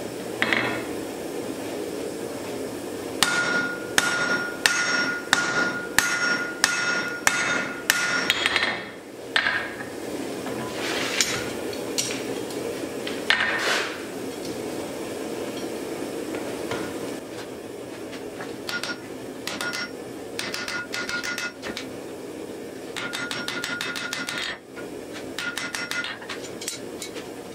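Blacksmith's hammer striking red-hot steel on an anvil, each blow ringing with a high anvil tone. It comes in bursts: a quick run of heavy blows, a few scattered strikes, then a longer series of quicker, lighter blows near the end.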